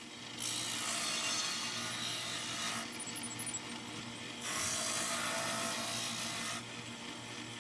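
A small power sander's motor runs with a steady hum while a piece of wood is sanded against it in two passes of about two seconds each. The first pass begins about half a second in and the second about halfway through.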